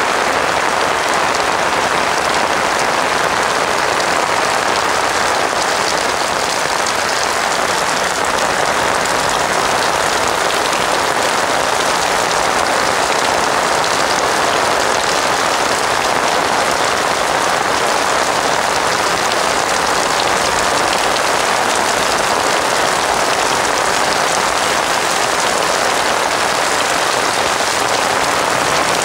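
Heavy rain falling steadily, a dense even hiss that does not let up.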